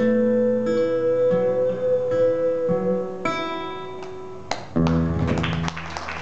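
Solo acoustic guitar plays slow, ringing single notes over a held note, ending the piece with a low final chord almost five seconds in. Audience applause breaks out as the chord rings.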